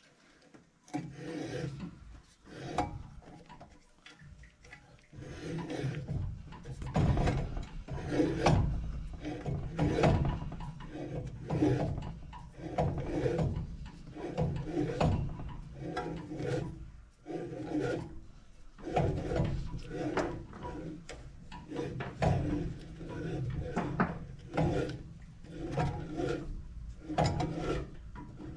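Hand tubing cutter being worked around a copper pipe, its cutting wheel scoring the copper with a rasping scrape on each turn, roughly once a second.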